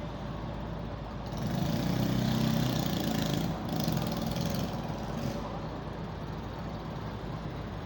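Street traffic: a motor vehicle's engine passes close, loudest from about one to three seconds in, over a steady hum of traffic.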